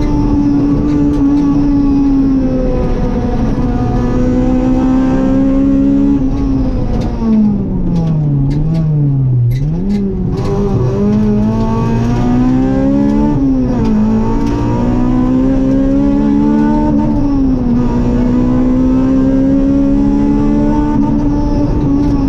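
Rally car's engine heard from inside the cabin, running hard at high revs with short dips as the driver lifts and changes gear. From about seven seconds in the revs fall steeply as the car slows for a junction, with a few sharp clicks, then climb again as it accelerates away.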